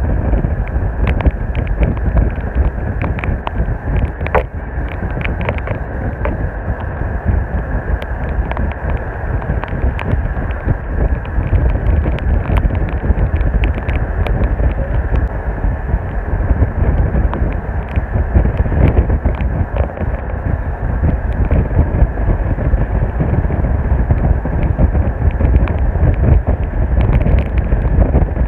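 Wind buffeting the microphone and road noise from a moving car, a loud steady rumble with frequent small clicks and rattles.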